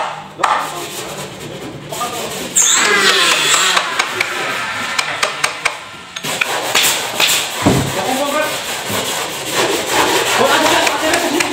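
Hand-working the edge of a piece of HPL-laminated plywood: repeated rubbing and rasping strokes of a hand tool on wood and laminate, louder from about two and a half seconds in.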